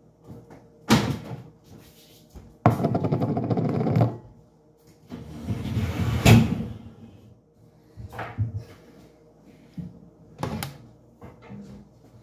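Kitchen clatter while dishes are dried and put away: sharp knocks and clacks of dishes and cupboard doors, with two longer stretches of rushing noise in between.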